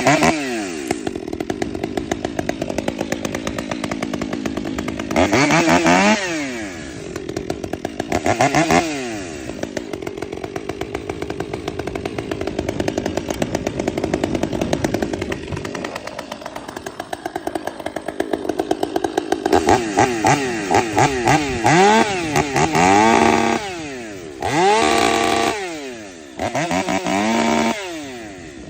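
Modified Stihl 500i fuel-injected two-stroke chainsaw running on its first cold start, warming up with the chain brake on. It idles steadily and is revved up and back down once at about five seconds and again near nine seconds. In the last ten seconds it is given a string of quick revs.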